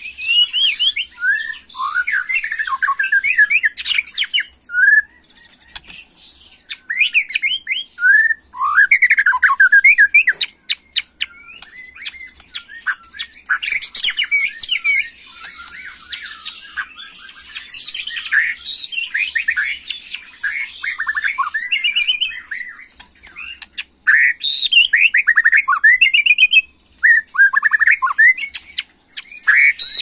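White-rumped shama (murai batu) singing in an agitated, worked-up state: fast, varied phrases of rapid up-and-down whistled notes, broken by a few short pauses.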